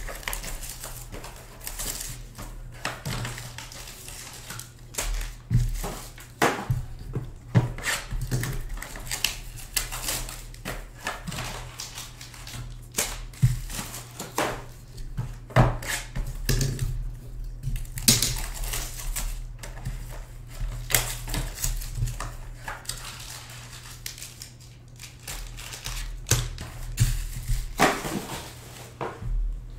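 Foil trading-card packs and their box being handled on a table: irregular crinkles, taps and clicks, with a few longer rustles, over a low steady hum.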